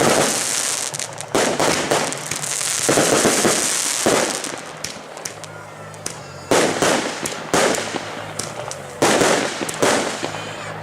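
Aerial fireworks going off: a string of loud bangs from bursting shells, one every one to two seconds, with a hissing crackle trailing after some of them.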